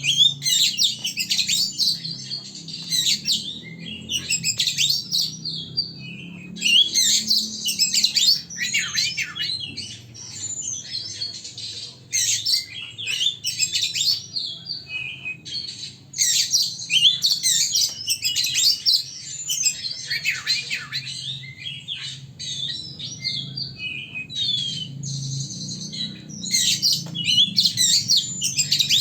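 A songbird singing, with rapid chirps and trills in bursts of a few seconds broken by short pauses.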